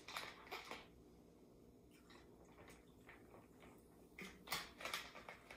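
Faint sounds of a plastic bottle of soda water being opened, then poured over ice into a glass, with a few soft splashes and fizz about four seconds in.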